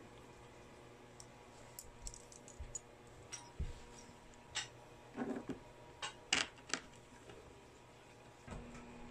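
Scattered light clicks and taps, with a few louder knocks in the middle, from the IKEA FRIHETEN sofa-bed frame and its fittings being handled while the bolt holes are lined up.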